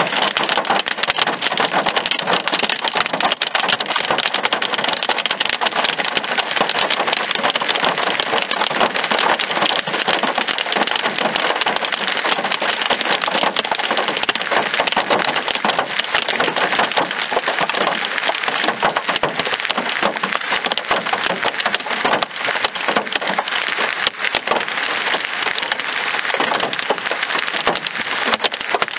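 Large hail, golf ball to tennis ball size, pelting down with rain: a dense, unbroken clatter of hard impacts over a steady rush.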